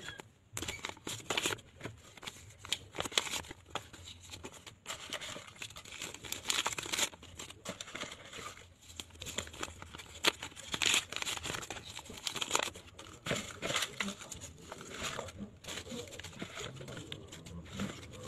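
Paper envelopes and banknotes being handled: envelopes opened and notes pulled out and dropped on a pile, crinkling and rustling in a run of irregular bursts.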